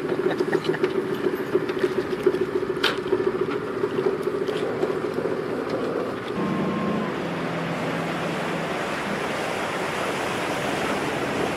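Boat engine running with a steady, pulsing hum. About six seconds in it cuts off sharply and gives way to a lower, steady drone for a couple of seconds, then to steady wind and water noise.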